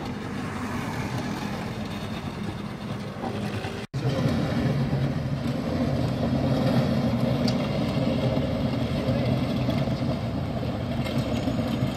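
Steady vehicle noise on a highway: a running engine and traffic. It drops out for an instant about four seconds in, where the footage is cut, and after that the low engine hum is louder and steadier.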